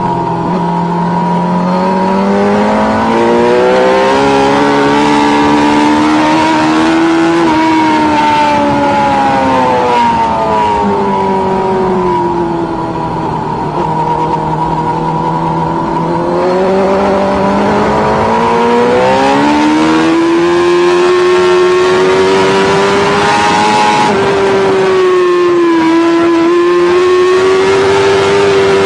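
Sportbike engine heard on board at speed. Its note rises and falls with the throttle through the bends, dipping about halfway and dropping suddenly near the end, over a steady rush of wind noise.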